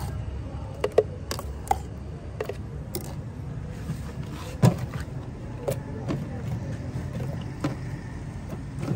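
Kitchen utensils clinking and knocking: a metal spoon scraping and tapping a steel pot and a blender jar, in a string of sharp clinks, the loudest about halfway through, over a steady low background rumble.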